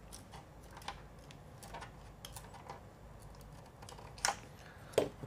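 Small curved scissors snipping the edge of a clear plastic RC car body shell: faint, irregular light clicks, with two sharper clicks about four and five seconds in.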